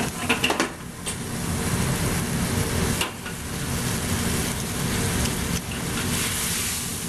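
Vegetables and sauce sizzling and bubbling in a steel wok over a gas flame, with a few clacks of a metal ladle and spatula against the wok as they are stirred.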